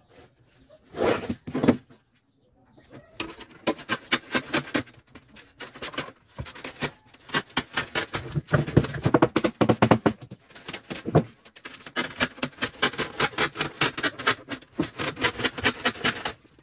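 A hand tool working window-screen mesh along the frame edge: rapid, even clicking and scraping, starting about three seconds in and going on with short breaks until near the end.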